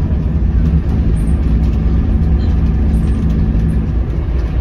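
Scania K230UB city bus's rear-mounted five-cylinder diesel engine heard from inside the passenger cabin as the bus drives, a steady low rumble with a humming engine note that fades a little before the end.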